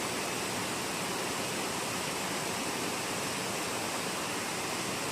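Heavy rain falling steadily, a dense even hiss of rainfall.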